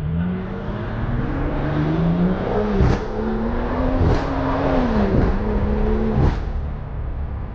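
BMW engine accelerating hard, its note climbing, broken about three times by a sharp crack and a quick dip in pitch, as at gear changes.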